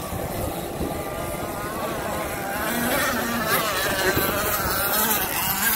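Two-stroke gas engines of RC race boats running at high revs. One boat passes close about three seconds in, its whine louder and its pitch rising and falling as it goes by.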